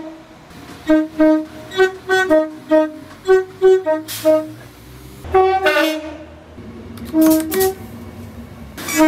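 Train horn sounded in a rapid string of short blasts, about a dozen in the first four seconds, shifting in pitch from one blast to the next. A few more spaced blasts follow, with two brief bursts of noise and a low rumble beneath from about four seconds in.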